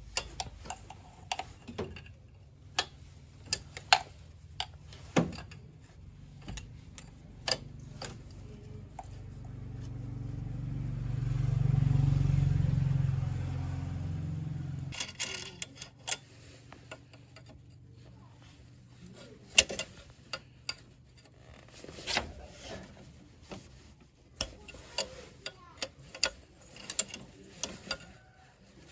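Scattered clicks and knocks of tools and metal parts being handled during car repair work, with a low motor hum that swells about a third of the way in and cuts off suddenly about halfway through.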